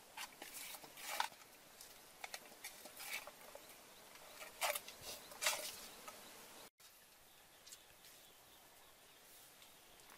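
Hands working a raw whole chicken in a metal bowl: a series of short, irregular rubbing and squelching sounds, several in the first six seconds, then only faint background after a brief cut.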